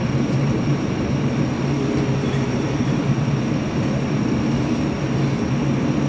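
JCB backhoe loader's diesel engine running steadily, a constant low hum.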